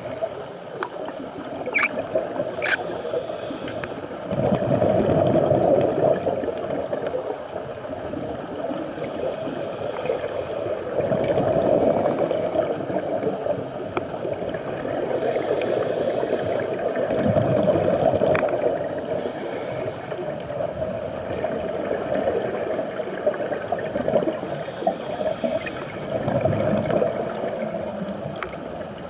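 Underwater bubbling and gurgling that swells and fades in surges every few seconds, with short hissing passages between them and a few faint clicks.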